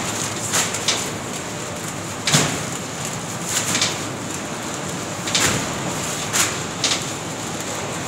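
Heavy paper cement bags thudding down one after another onto a stack inside a metal shipping container, about eight uneven thuds with the loudest a little over two seconds in, over the steady running noise of the bag-loading conveyor.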